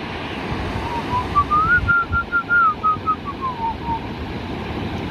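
A person whistling a short tune over the steady rush of breaking surf. The tune starts about a second in, climbs, holds high for a few notes, then falls back and stops near four seconds.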